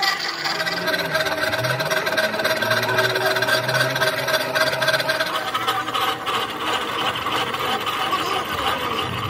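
A workshop machine running steadily, giving a mix of held tones with a rattle beneath.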